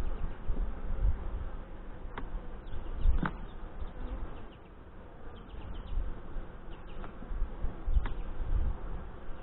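Honey bees buzzing around an open hive during a frame inspection, with low rumbles and a few sharp clicks about two, three and eight seconds in.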